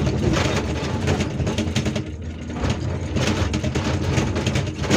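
Hyundai R480LC-9S excavator's diesel engine running under load while its hydraulic breaker hammers on rock in a rapid rattle, which stops briefly about two seconds in and then resumes.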